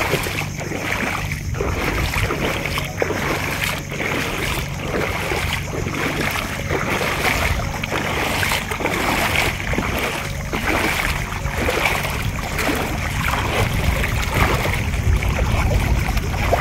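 Legs wading through knee-deep shallow seawater, sloshing at each stride, over a low wind rumble on the microphone.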